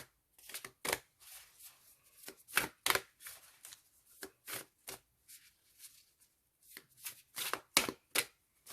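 A deck of oracle cards being shuffled by hand: an irregular run of short card slaps and swishes as the deck is worked to shake a jumper card loose.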